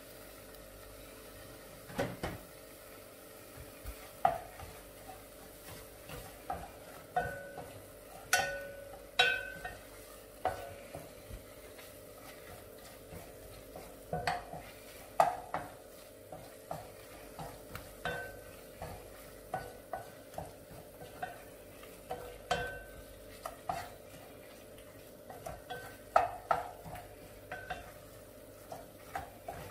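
Wooden spoon stirring rendang spice paste and leaves in a stainless steel Saladmaster pot: irregular knocks and scrapes against the pot, some ringing briefly, over a faint sizzle of the paste frying in a little oil.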